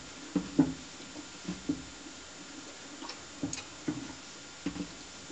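American Quarter Horse foal nosing and eating feed in a plastic bucket: irregular knocks and clicks, a few each second, as its muzzle works through the feed and bumps the bucket.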